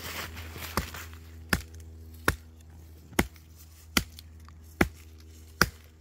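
Hatchet chopping into the trunk of a small cedar tree: seven sharp strikes, about one every 0.8 seconds.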